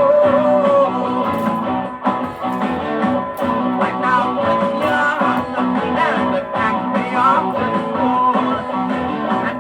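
Rock band playing an instrumental passage without vocals: a lead guitar plays bent notes over bass and drums.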